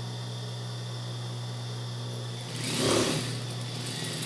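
Industrial lockstitch sewing machine stitching a seam: the motor hums steadily, and a louder run of the machine comes about three seconds in.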